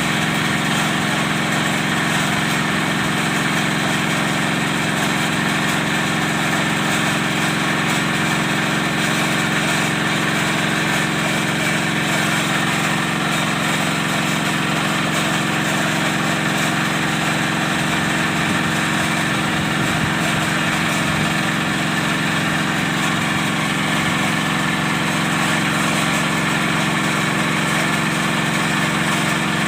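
Engine of a charcoal-making machine running steadily at constant speed, with a continuous mechanical drone and no change in pitch or load.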